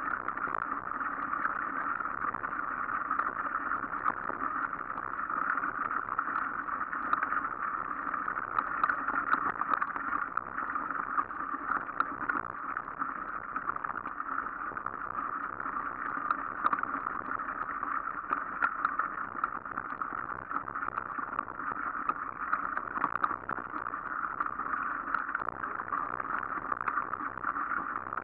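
Mountain bike riding over a leaf-covered dirt forest path, heard from a camera mounted on the bike: a steady, muffled rushing of tyres and wind with small rattles and ticks scattered throughout.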